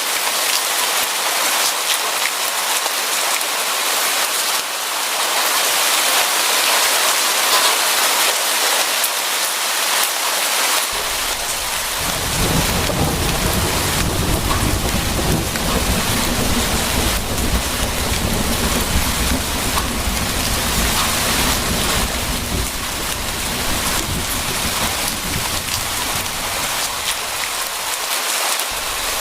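Steady heavy rain hissing, with a long, low roll of thunder that sets in about a third of the way through and rumbles on until near the end.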